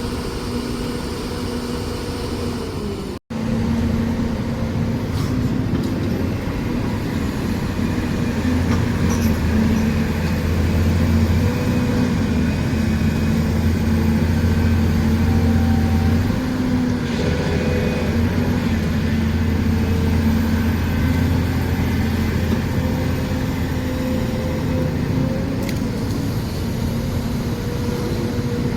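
Excavator's diesel engine running steadily while working, its low hum heavier for several seconds in the middle. The sound drops out for an instant about three seconds in.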